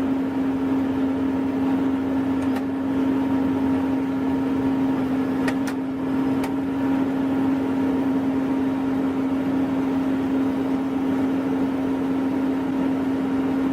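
Heavy construction machine's engine running steadily with a constant hum, and a few faint ticks.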